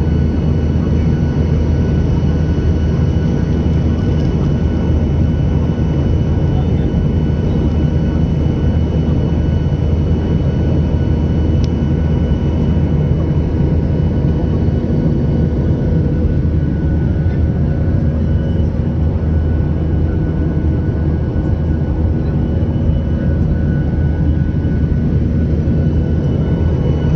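Jet airliner engines running with a steady, unchanging drone, a deep rumble with faint steady whine tones above it.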